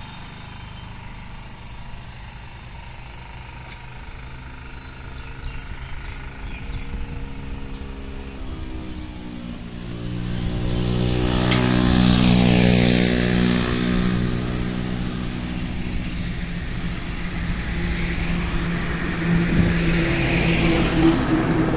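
A motor vehicle's engine approaching and passing close by, its pitch sliding as it goes past, loudest about twelve seconds in, then running on and rising again near the end.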